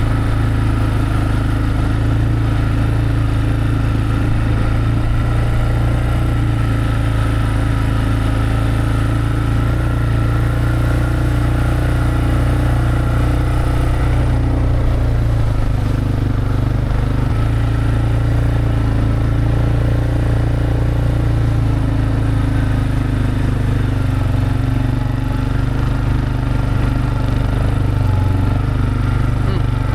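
A vehicle engine running steadily at an even speed, a constant low drone with no change in pace.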